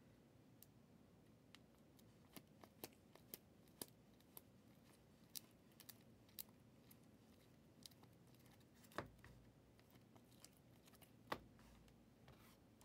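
Faint clicks and ticks of a stack of trading cards being flipped through by hand, one card after another, with two louder knocks about nine and eleven seconds in.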